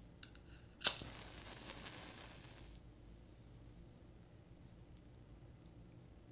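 A match struck once, about a second in, flaring with a hiss that fades away over about two seconds.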